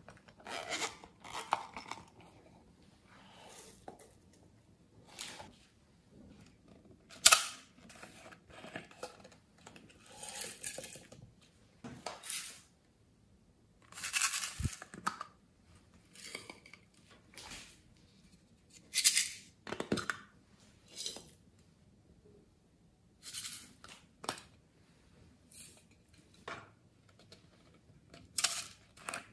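Hands handling and opening small plastic toy cases and shaking glitter and sequins out of them onto slime. The sound is an irregular run of plastic clicks, taps and rustles, with one sharper knock about halfway through.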